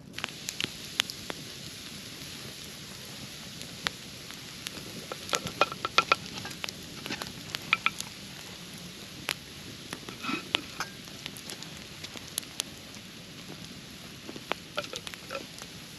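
Food sizzling on a hot stone over a campfire: a steady hiss with frequent sharp pops and crackles.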